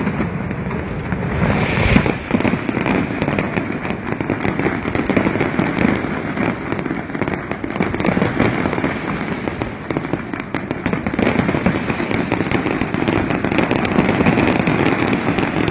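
Fireworks display: a dense, continuous barrage of booming bursts and crackling, with one louder bang about two seconds in.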